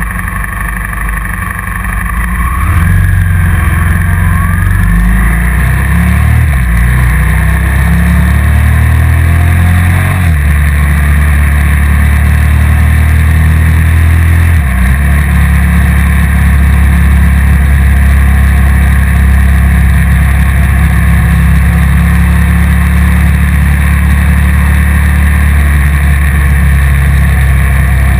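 Motorcycle engine on the move, gathering speed through the gears: its pitch climbs from a few seconds in, drops at shifts about ten and fifteen seconds in, then runs at a steady cruise.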